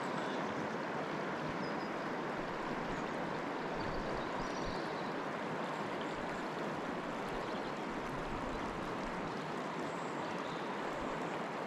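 Steady, even rush of a river's current flowing past, the river running high after rain.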